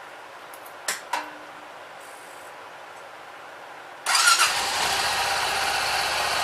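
Two short clicks, then about four seconds in the Honda Pioneer 700's single-cylinder engine starts and settles into a steady run. It is the first start after an oil change, run to circulate the fresh oil before the level and the filter are checked for leaks.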